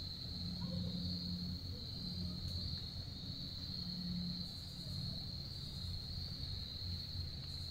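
Steady insect chorus of crickets, an unbroken high-pitched trill that never pauses, over a low steady rumble.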